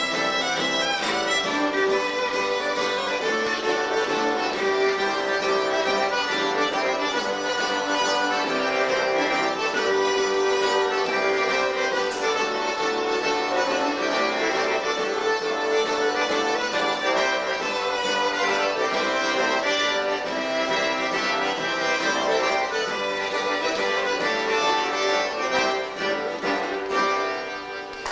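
Cajun band of button accordion, fiddle and acoustic guitar playing an instrumental tune together, unamplified, the accordion carrying the melody. The tune ends near the end.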